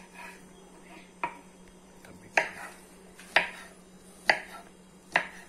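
Kitchen knife chopping smoked sausage on a wooden cutting board: a sharp knock about once a second, five or six strokes in all.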